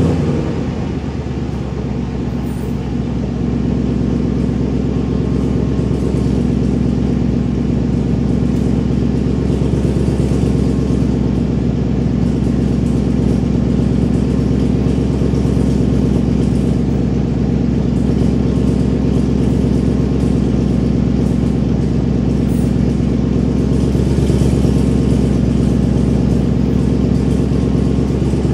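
2015 Mustang GT's 5.0 L V8 idling through a catless exhaust (MAK cat deletes with an MBRP Street cat-back), still warming up from a cold start. It settles from a rev into a steady idle in the first second or so.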